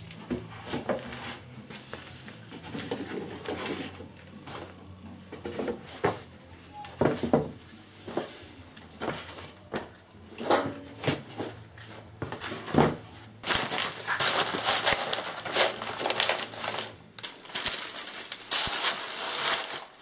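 Shoes set down on the wooden shelves of a pine shoe rack, a string of irregular knocks and clunks. About two thirds of the way through, a dense crinkling rustle of plastic bags being handled takes over.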